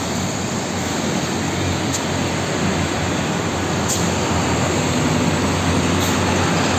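Road traffic: concrete mixer trucks and motorbikes driving past, a steady rush of engine and tyre noise with a low engine hum underneath.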